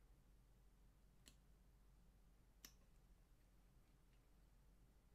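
Near silence, with two faint sharp clicks about a second and a half apart from an X-Acto knife trimming loose plaster-bandage gauze on a plaster mold.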